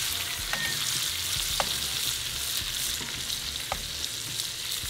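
Bacon lardons frying in a hot cast-iron skillet with a steady sizzle, beside bratwursts simmering in beer in a second cast-iron pan as metal tongs turn them. A few light ticks sound over the sizzle.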